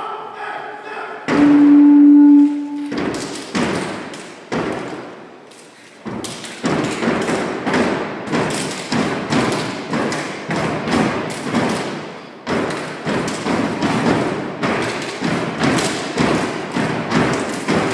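A step team stomping and clapping in unison on a hollow stage riser: a steady rhythm of thuds and claps, sparse at first and running dense and even from about six seconds in. A loud held note sounds briefly about a second in.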